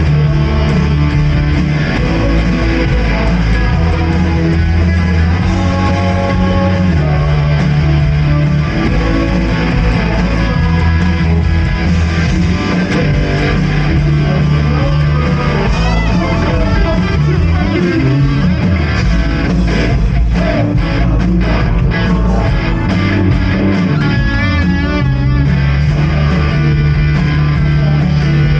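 Live worship band playing an instrumental passage led by guitar, over steady bass notes that change every few seconds; sharper rhythmic strokes and a wavering high note come in past the middle.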